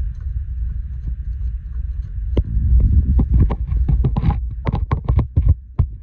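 A low, steady rumble, with a run of sharp clicks and knocks from about two and a half seconds in, as fittings inside a combi boiler are worked on by hand after the plate heat exchanger is refitted.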